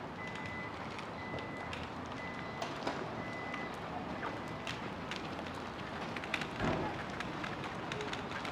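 A vehicle's reversing alarm beeping: five steady high beeps, about one a second, which stop about halfway through. Footsteps on pavement run throughout, with a brief low thump a little after two-thirds of the way.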